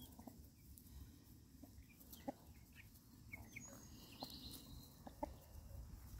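Chickens foraging, giving faint, short, soft clucks and brief high peeps, with the loudest clucks about two seconds in and again about five seconds in.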